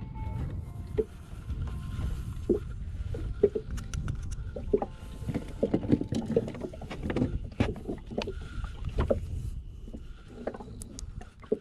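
Small boat moving on the water: a low, steady rumble of water against the hull, with many short knocks and clatters of gear on the deck.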